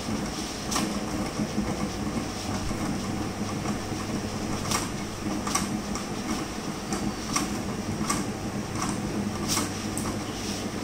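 Large-format printer running while it prints a roll of vinyl stickers: a steady mechanical hum with sharp clicks, one early on and then one about every three-quarters of a second through the second half.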